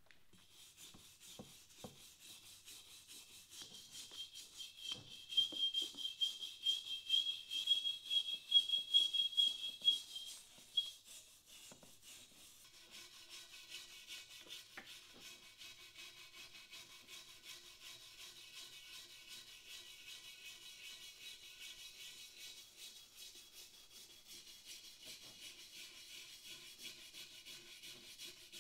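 Stiff hand brush scrubbing rust and crust off a cast iron pot in quick back-and-forth strokes. The strokes are loudest, with a thin high ring, for several seconds near the start, then settle into steadier, quieter scrubbing.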